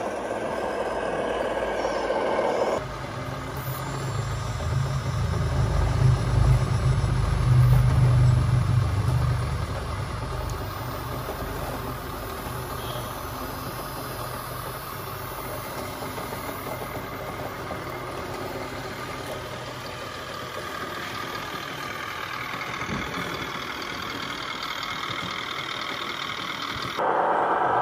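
Radio-controlled scale model trucks running, with a steady engine-like drone. A deeper, louder rumble swells from about three to ten seconds in, and the sound changes abruptly twice.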